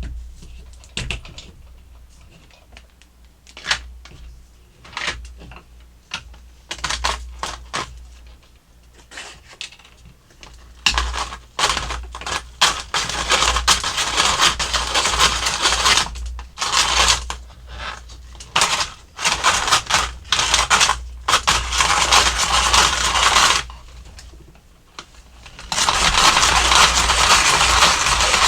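Hand-cranked Snoopy snow cone maker shaving ice. About ten seconds of scattered clicks and knocks come first, then a grinding scrape in spurts. After a brief pause the grinding goes on steadily near the end.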